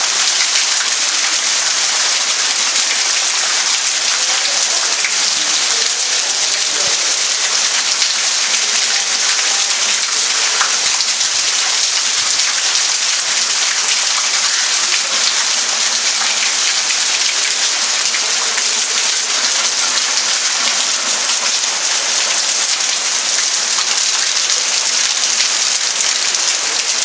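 Heavy rain pouring down steadily, with water streaming off the edge of a corrugated roof.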